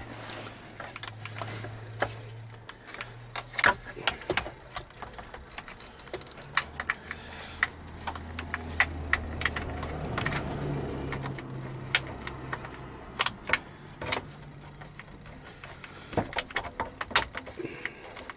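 Irregular plastic clicks, taps and rattles of wiring-harness connectors being handled and pushed together behind a truck's dash panel.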